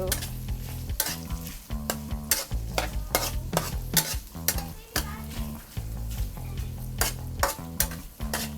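Pork fat frying and sizzling in a pan while being stirred, the utensil scraping and clicking sharply against the pan many times at an irregular pace. The fat is being fried until it browns, the first step of a sauté.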